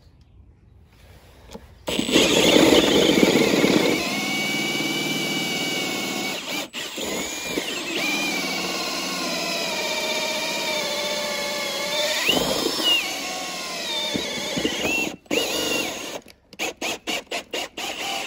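Milwaukee M18 Fuel cordless drill boring a hole through vinyl siding and the wood behind it. It starts about two seconds in and runs with a wavering, squealing whine, cutting out briefly twice. Near the end it comes in short stop-start trigger bursts.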